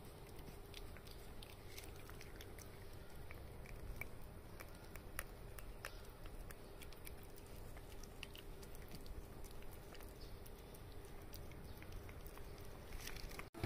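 Cats licking and lapping at the paste of a squeeze-tube cat treat: faint, irregular small wet clicks of tongues and teeth on the treat.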